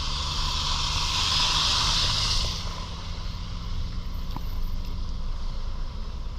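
Road traffic in wet snow: a loud tyre hiss on slush that drops away about two and a half seconds in, over a steady low engine hum.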